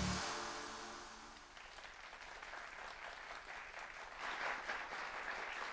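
Studio audience applauding: the clapping rises out of the fading end of a music sting and grows louder about four seconds in.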